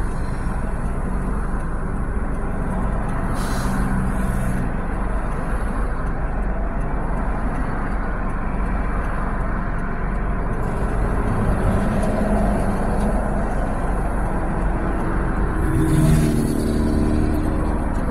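Cross traffic of cars and a semi-truck driving past, heard from inside a car stopped at the light, as a steady low rumble of road noise. Two vehicles pass more loudly with a brief hiss, one a few seconds in and a louder one near the end.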